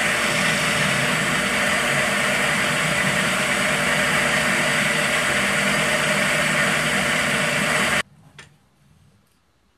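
Wood lathe running steadily while a hand-held turning tool scrapes the face of a small spinning wooden bowl blank. The sound cuts off abruptly about eight seconds in, followed by a faint knock.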